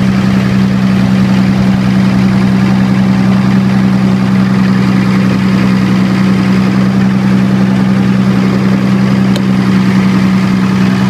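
Diesel generator engine running steadily in dual-fuel mode, burning diesel with natural gas injected, giving a constant low hum with no change in speed.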